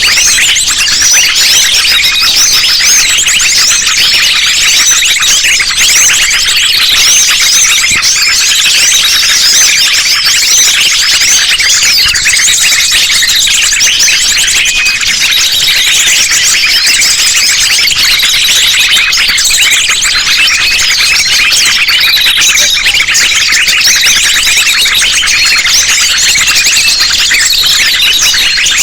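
Dense, continuous chorus of many small birds' high chirps and rapid trills layered over one another, from a combined lure recording of small songbirds such as sunbirds. It is loud and unbroken, with no pauses.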